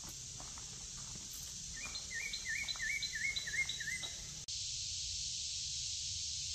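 Steady high-pitched drone of an insect chorus, with a bird singing a run of about seven quick, repeated slurred notes in the middle. The drone cuts out for an instant about two-thirds of the way through, then carries on.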